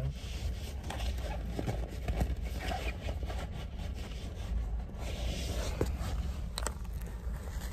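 Handling noise from a phone held in the hand and a wallet being brought out: soft rubbing and knocks, with a few sharp clicks near the end, over a steady low rumble inside a car.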